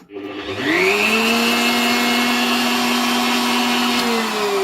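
Bosch GMF 1600 CE router motor switched on with a click, spinning up with a rising whine to full speed and running steadily. About four seconds in the power is cut and it begins to wind down, its pitch falling.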